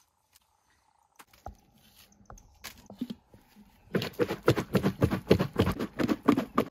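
Kitchen knife peeling green bananas in quick strokes, a fast run of crisp cutting sounds about six a second, starting about four seconds in. Before that only a few faint knocks.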